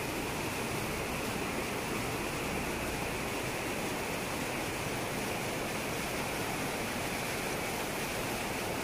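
Steady rush of a rocky mountain river, water running over stones and a small cascade.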